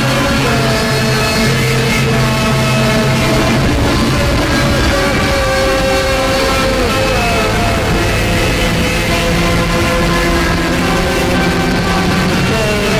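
Rock music with guitar. A low bass note pulses evenly through the first few seconds, and sliding guitar tones come in later.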